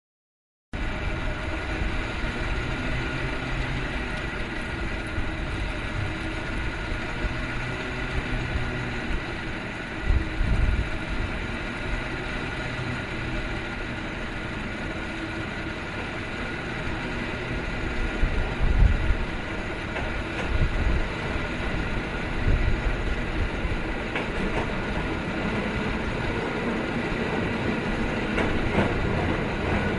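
San Francisco cable car running uphill: the steady rumble and whine of the cable and wheels on the rails, with a few heavier clunks. It grows slightly louder near the end as the car comes closer.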